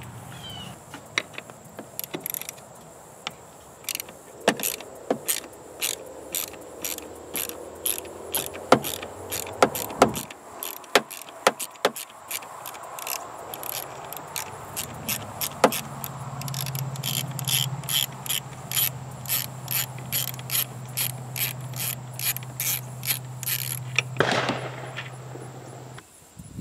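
Socket ratchet clicking in quick, even back-strokes, about two to three clicks a second, as it loosens an intercooler mounting bolt. A low steady hum runs under the second half, and a short rasp comes near the end.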